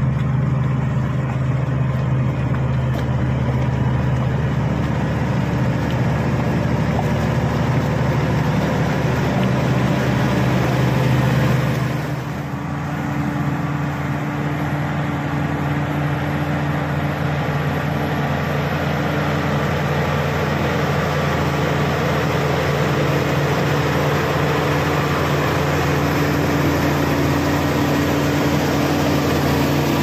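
Shantui SD16 crawler bulldozer's diesel engine running steadily as it pushes earth, with a deep hum that shifts in pitch about twelve seconds in.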